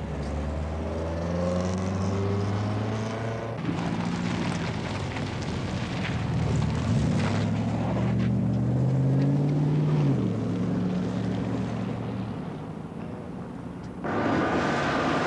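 Triumph Stag's 3-litre V8 engine running on the road. Its pitch climbs as it accelerates and drops suddenly about ten seconds in, at a gear change. A burst of rushing noise comes near the end.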